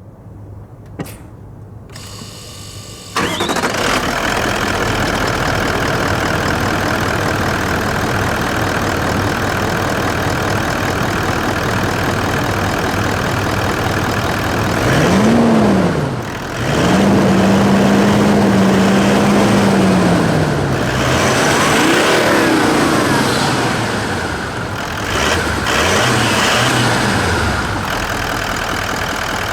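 Toyota Land Cruiser 200's 4.5-litre V8 D-4D turbodiesel: a click, a second of starter cranking, then the engine catches and idles. It is revved several times: one quick blip, a higher speed held for a few seconds, then two more short blips, each time falling back to idle.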